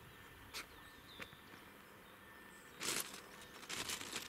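Footsteps crunching on the gravel ballast of a railway track, a few irregular steps with the loudest crunch about three seconds in.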